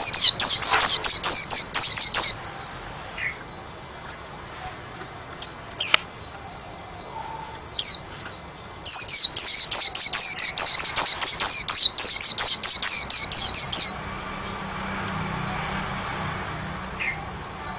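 Small caged songbird singing a rapid string of loud, clear downward-sliding whistled notes, about five a second, in two bouts: for the first two seconds and again from about nine to fourteen seconds in. Softer, scattered chirps fill the gaps between and after.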